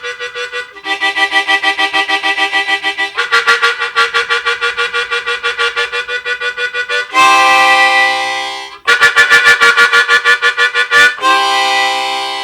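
Hohner Special 20 diatonic harmonica imitating a steam train: fast, even chugging pulses of a chord, broken twice by a long held whistle chord, first about seven seconds in and again near the end, fading out.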